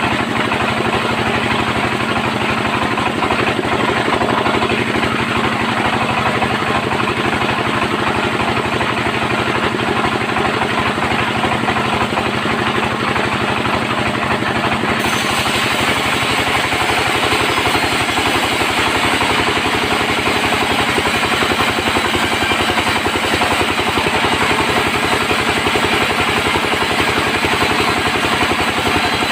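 Band sawmill running with a steady mechanical drone and a fast, even pulsing. About halfway through, a brighter hiss suddenly joins it and continues.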